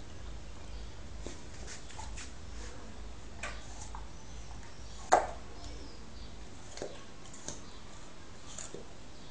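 Dog chewing an apple: scattered short crunches and clicks of teeth on the fruit, the loudest one about five seconds in.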